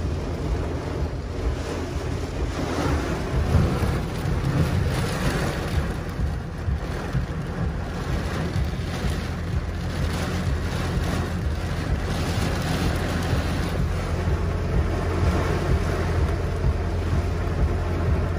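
Torrential rain and strong wind hitting a car, heard from inside the cabin: a dense, steady rushing hiss with a deep rumble underneath.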